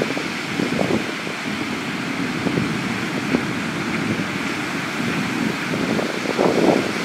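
Wind buffeting the microphone as a steady, uneven rush, over the wash of waves breaking on the beach.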